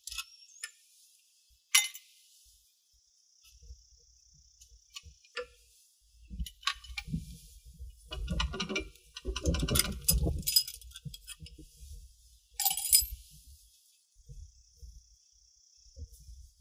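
Metal clicks and clinks as a shaft bearing is worked loose and pulled off an air cart's seed meter by hand, with a sharp click about two seconds in, a flurry of clinks and rubbing handling noise in the middle, and a loud clink near the end.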